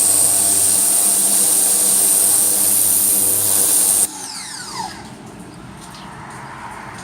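Ryobi 1600 PSI electric pressure washer running with a strong high hiss from its water jet. It cuts off suddenly about four seconds in, and the motor winds down with a short falling whine.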